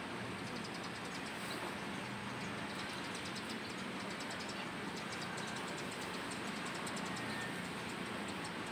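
Steady rushing noise of wind and choppy lake water washing against the shore, with no let-up.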